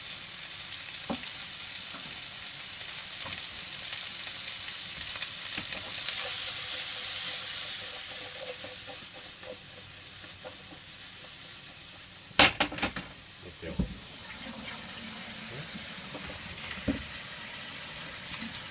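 Cut asparagus sizzling in oil in a frying pan, the pan shaken to toss the pieces. A few sharp knocks of the pan against the stove about twelve to fourteen seconds in, and one more near the end.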